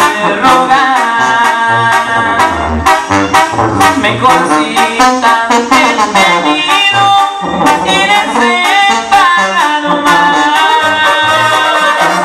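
A live Mexican banda plays: trumpets, trombones and clarinets carry the melody over a tuba bass line and a steady drum beat.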